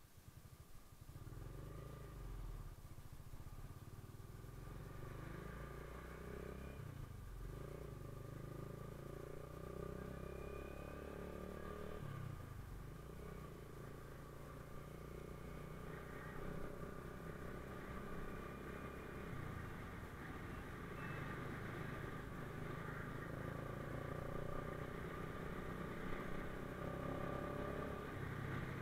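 SYM Wolf 125's single-cylinder four-stroke engine running under way, heard from on the bike, with its pitch changing in steps several times.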